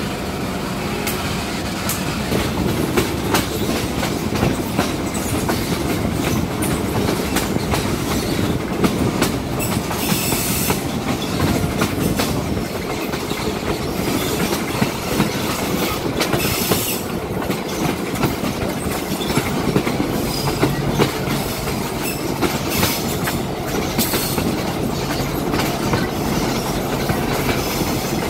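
Diesel-hauled passenger train rolling along, heard from an open coach window: a steady rumble of wheels on the rails with frequent clicks over the rail joints, and a couple of brief high squeals around the middle.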